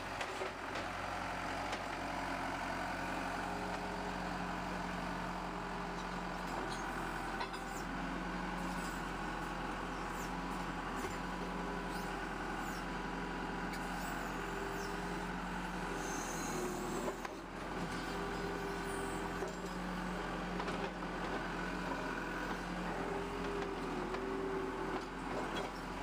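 Skid steer loader's diesel engine running steadily as its bucket pries up and breaks the old asphalt driveway, with scattered cracks and scrapes of the asphalt.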